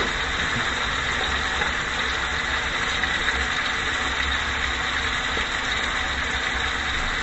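Steady sizzling of a rib-eye steak and onions frying in butter in skillets, with a low steady hum underneath.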